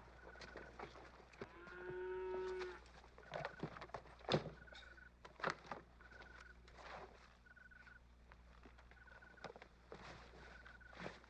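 A cow lowing once, one drawn-out moo about two seconds in, over the faint rustle of camp gear being handled. A short high chirp recurs about every second and a half.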